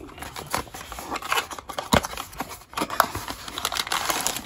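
Hands opening a small cardboard blind box: the flaps and paper insert rustle and scrape, with irregular small clicks and taps of cardboard being handled.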